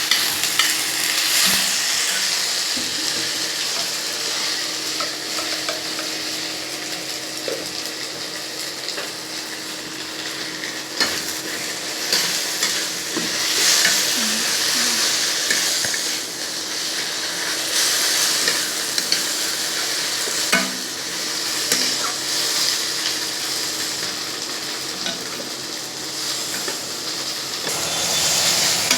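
Besan curry sizzling in a hot pan as it is stirred: a steady frying hiss with the spoon now and then clicking against the pan.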